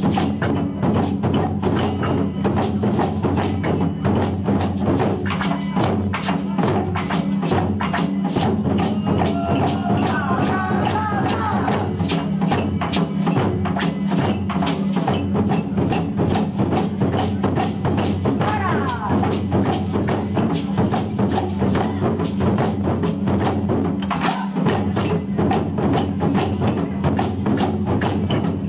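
Taiko ensemble drumming: several drummers beating barrel-shaped taiko drums with wooden sticks in a fast, unbroken rhythm.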